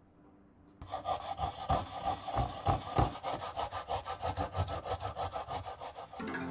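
Rapid back-and-forth rasping strokes against a copper grater plate, several a second, with a faint metallic ring. They start about a second in and stop abruptly near the end.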